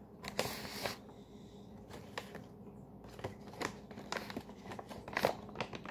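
Quiet handling noise as a Canadian ration pouch is fetched: a short crinkling rustle of packaging about half a second in, then scattered light clicks and knocks.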